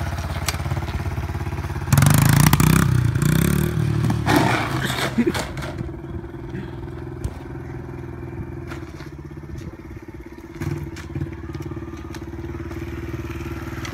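Pit bike's small single-cylinder engine idling, then a loud, rough burst of noise about two seconds in that lasts a couple of seconds. After that the engine runs on more quietly, with scattered clicks and knocks.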